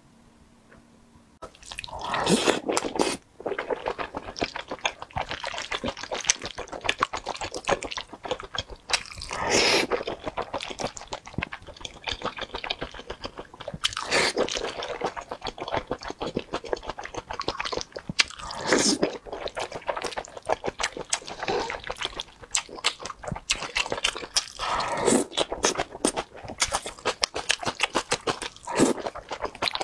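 Close-miked wet eating: saucy noodles and wontons chewed and slurped, starting about a second and a half in, with louder slurps every few seconds over steady smacking and chewing.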